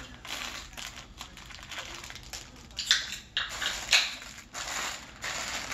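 Plastic candy wrappers crinkling and rustling as a pile of individually wrapped candy is picked through and sorted by hand, with two sharper, louder crinkles about three and four seconds in.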